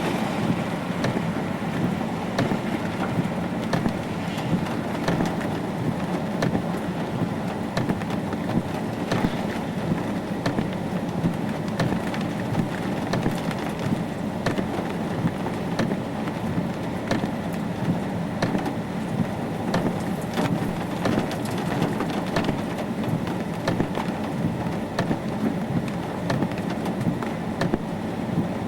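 Rain pattering on a vehicle, with many sharp individual drop hits over a steady low rumble.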